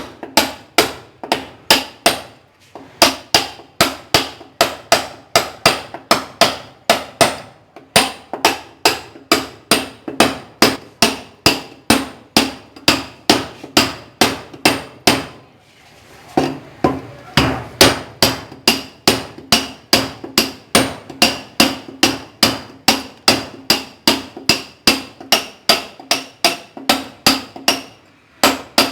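A hand sledgehammer striking a steel chisel, chipping masonry. The blows come rapid and even, about three a second, each with a short metallic ring, and stop briefly a few times.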